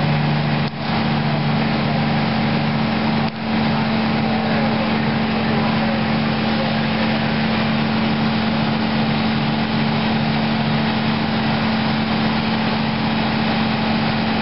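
Fire engine's diesel engine running steadily to drive its pump: a constant drone over an even hiss, with two brief dips, about one and three seconds in.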